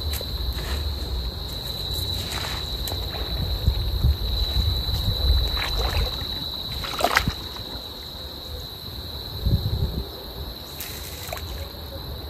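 Outdoor ambience with a steady high insect trill, a low wind rumble and light water sloshing, broken by a few small clicks and knocks.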